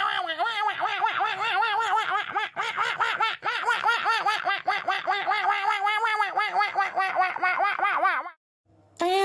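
Laughter sound effect: a long run of quick, even, high-pitched 'ha-ha-ha' pulses that cuts off suddenly near the end.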